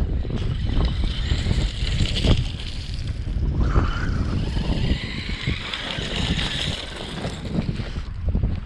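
Wind buffeting the microphone, over the high whine and tyre noise of a brushless Traxxas RC monster truck driving across a gravel and shell beach. Its sound swells and fades as it speeds up and slows.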